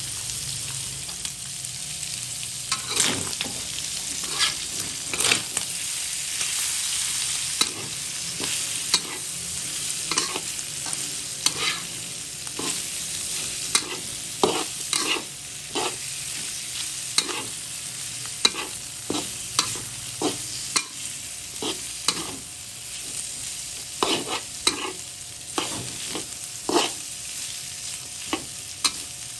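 Beef, onion and garlic sizzling in a hot wok while a metal spatula stirs and turns them, with frequent clacks and scrapes of the spatula against the wok.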